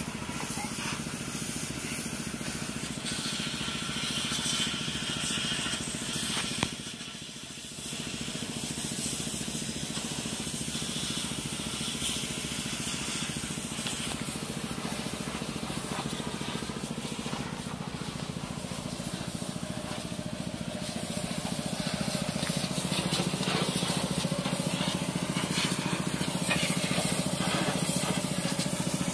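Water spraying with a steady hiss over a running engine's hum, as a combine harvester is washed down. The spray dips briefly about seven seconds in and grows a little louder near the end.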